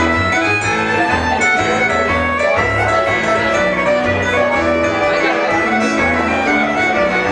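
Fiddle playing a tune over an accompaniment of chords and regularly repeating low bass notes.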